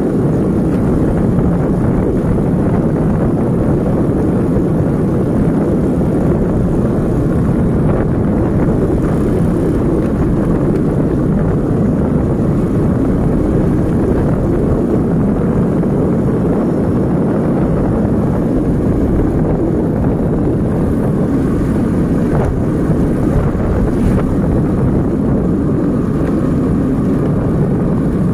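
Steady rumble of wind buffeting the microphone over a moving motorcycle's running engine and tyres on a paved road.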